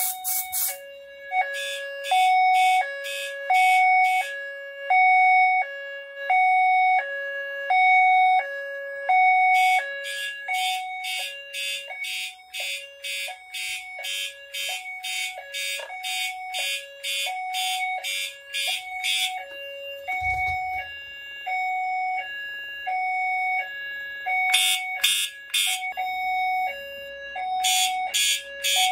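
Fire alarm notification appliances sounding in alarm after a smoke detector was set off with test smoke. A two-tone high-low signal alternates about twice a second throughout, and stretches of a harsh horn pulsing a few times a second start and stop over it.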